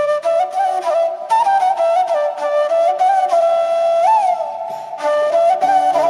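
Background music: a flute playing a melody over light percussion.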